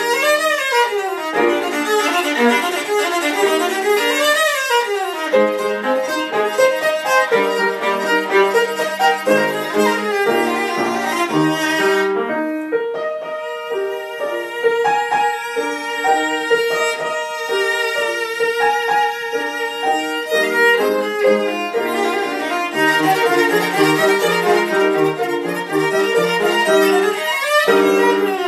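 Violin playing a fast passage of quick runs sweeping up and down, easing into a softer stretch of longer held notes about halfway through, then fast runs again near the end.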